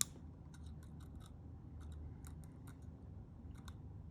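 Scissors snipping through the tail of a thin orthodontic jaw wire with one sharp click, followed by faint small ticks and scrapes as the wire and instrument are handled.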